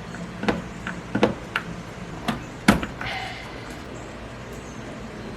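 Sharp clicks and snaps of hand tools handling and cutting a wire in the truck's wiring harness, six or so in the first half, the loudest just before the middle, followed by a brief rustle.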